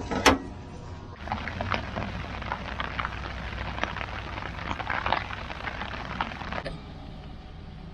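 Rain falling, a steady patter of many small irregular drop ticks. It starts about a second in and drops away to a quieter background hum near the end.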